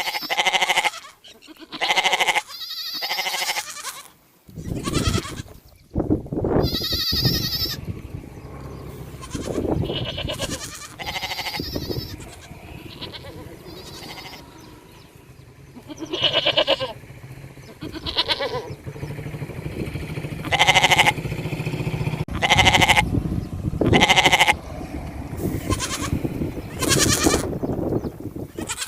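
Sheep and goats bleating: many separate calls one after another, over a low steady rumble that starts about five seconds in.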